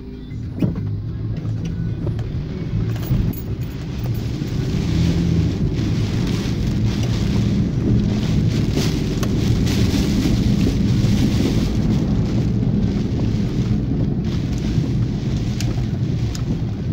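Car driving on a wet road in heavy rain, heard from inside the cabin: a steady engine and tyre hum with rain on the car's windscreen and body. It grows a little louder about four seconds in.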